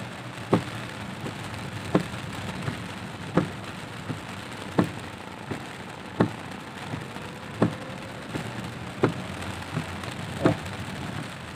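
Heavy rain on a car's windscreen and body, heard inside the cabin, with the windscreen wipers knocking as they sweep: a loud knock about every second and a half with a softer one between.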